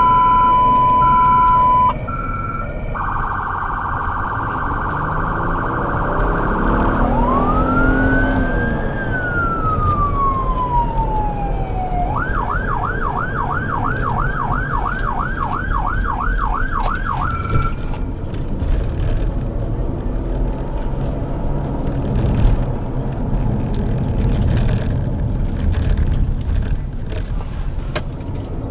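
Responding emergency vehicle's electronic siren: a steady high beep tone for the first two seconds, then a fast warble, one wail that rises quickly and falls slowly, and a yelp of about three sweeps a second. It cuts off a little over halfway through, leaving engine and road noise with scattered clicks.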